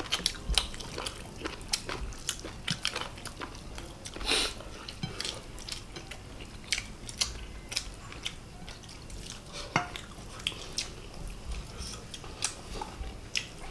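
People eating chicken and rice with their fingers: chewing and biting, with many scattered short clicks and taps against the plates. There is a brief louder rush of noise about four seconds in.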